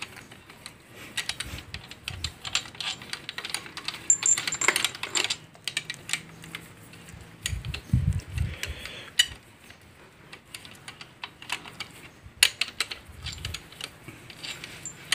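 Socket wrench on a long extension working the main bearing cap bolts of a Toyota Avanza 1.5 engine block: a run of sharp metallic clicks and clinks, with a few dull knocks about eight seconds in.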